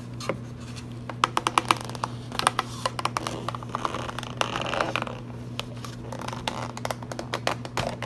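Thin plastic deli-cup lid being handled by fingers: a run of irregular sharp clicks and crackles with some scraping, as the lid is worked on the clear plastic container.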